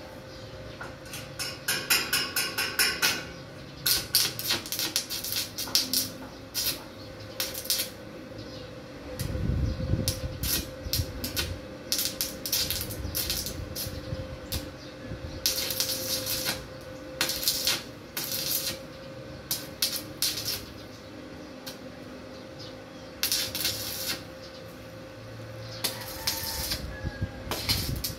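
Irregular metal clanks and knocks as metal grill parts are handled and struck, coming in clusters, with a few harsher bursts up to about a second long. A faint steady hum runs underneath.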